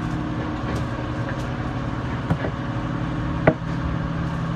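Hankyu electric train coasting slowly into a station, heard from the driver's cab: a steady hum with a few low tones. A short click comes a little over two seconds in, and a louder, sharper clack about three and a half seconds in.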